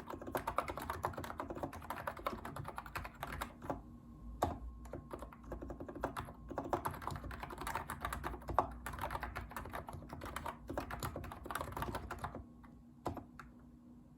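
Typing on a Hansung electro-capacitive keyboard with light 35 g switches: a fast, dense run of keystrokes that thins to a few single key presses near the end.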